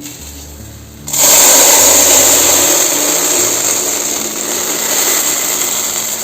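A small electric motor appliance switched on about a second in and running steadily for about five seconds, with a loud, even, hissing whir.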